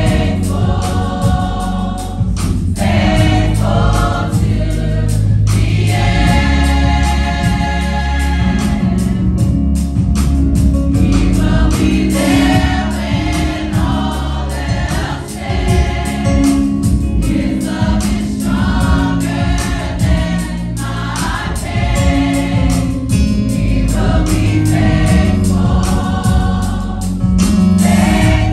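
Women's and girls' church choir singing a gospel song together, over a deep, steady instrumental accompaniment.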